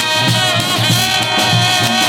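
Live brass band playing: horns holding notes over a repeating low bass line.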